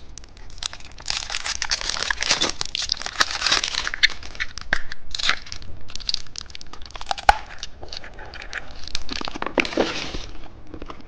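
Plastic wrapping of a car-key-shaped novelty candy crinkling and tearing as it is unwrapped, with irregular crackles and sharp clicks throughout.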